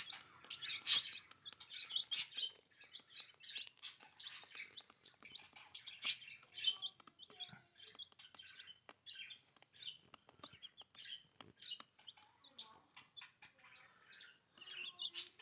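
Week-old chicks peeping: many short, high chirps overlapping throughout, with scattered light clicks.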